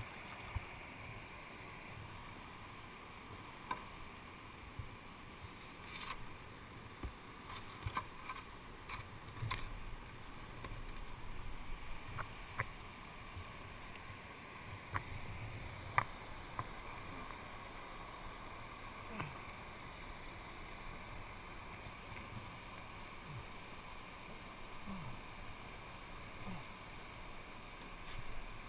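A plastic whitewater kayak being paddled through shallow creek water: steady sloshing and lapping of water at the hull and paddle blades, with scattered sharp knocks and clicks from the paddle.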